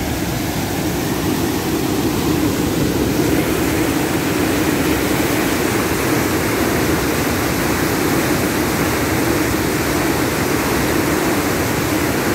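Steady loud rushing roar of floodwater pouring through the sluice gates of a river barrage, growing a little fuller about three seconds in.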